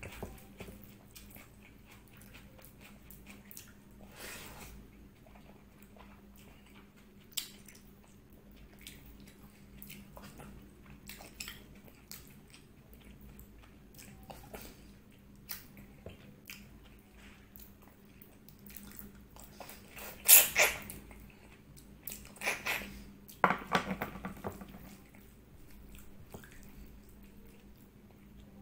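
Close-miked mouth sounds of someone eating rice and goat trotter curry by hand: soft chewing, wet lip smacks and clicks, with a couple of louder bursts of chewing about two-thirds of the way through. A faint steady hum lies underneath.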